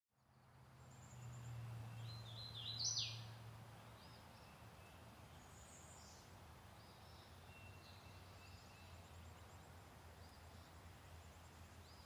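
Songbirds calling in woodland: scattered short, high chirps and whistles, the loudest a quick run of rising notes about three seconds in, over a faint low steady hum.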